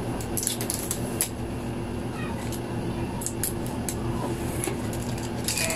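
Packing tape being peeled off the plastic body of a Silhouette Cameo 4 cutting machine: short crackling rips in a few bursts, over a steady low hum.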